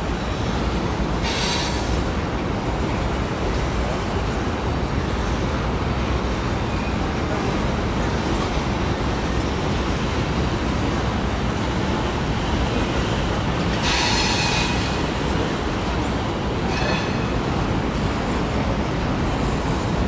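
Freight cars (tank cars and covered hoppers) rolling over a steel trestle: a steady rumble of wheels on rail, broken by a few brief wheel squeals, the longest about two-thirds of the way through.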